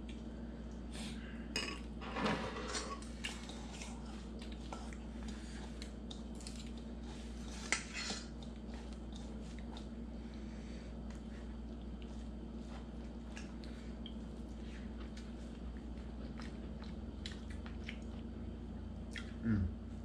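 Spoons and cutlery clinking and scraping against ceramic and metal bowls during a meal: a few scattered clinks, in a small cluster about two seconds in and a sharper one about eight seconds in, over a steady low hum.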